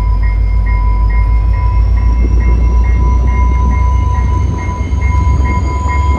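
Passenger train's diesel locomotive pulling away from the station: a heavy low engine rumble and a faint whine that rises slowly in pitch as it gathers speed. A steady tone and a short beep repeating about twice a second sound over it.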